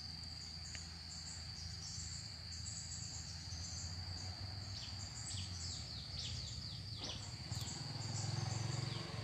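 Steady high-pitched insect trill, with a bird giving a quick run of short falling chirps in the middle and a few more near the end, over a low steady rumble.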